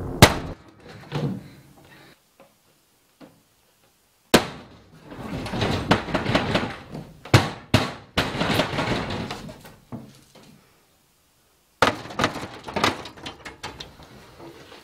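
Knocks and bangs on a panelled shed door, with stretches of scraping and rattling as the door is worked and finally opened.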